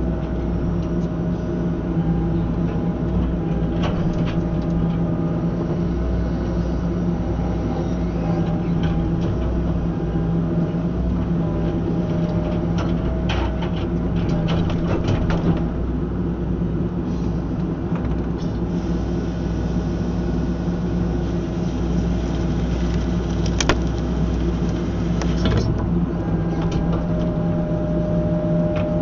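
Tracked excavator running steadily under hydraulic load, powering a CTR 42 IP ground saw (bucksaw) attachment: a constant engine drone with low rumble. Scattered sharp clicks and cracks come through, a strong one about two-thirds of the way in.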